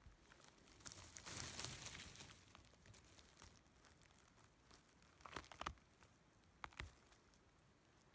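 Faint rustling and crackling of dry pine needles and forest litter as a hand digs around a porcino mushroom and pulls it up: a dense crackling stretch about a second in, then a cluster of sharp crackles past the middle and one more about a second later.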